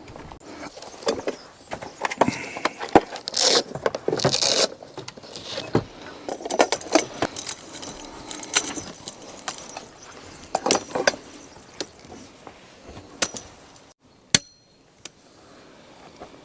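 Household items being handled and put away: a run of irregular clinks, knocks and rustles, like dishes, utensils and packets being moved about, thinning out in the last few seconds with one sharp click near the end.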